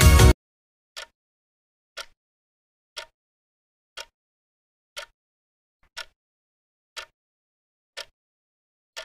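Background music cuts off just after the start, then a clock-tick sound effect marks a countdown timer, one short tick each second, nine in all, with silence between them.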